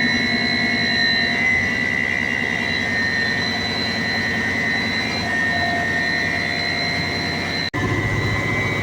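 Nidec electric induction motor running steadily on a test run, giving a constant whine with a hum beneath it. The sound breaks off for an instant near the end and goes on with a deeper hum.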